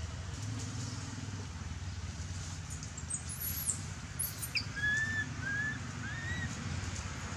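Outdoor forest ambience: a steady low rumble, with a few thin high squeaks around the middle and then three short whistled calls, each rising and falling.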